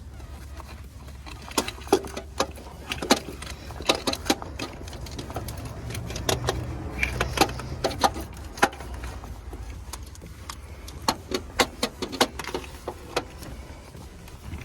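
Irregular metallic clinks and knocks of hand tools, a ratchet and sockets, working on a van's starter motor, over a steady low hum.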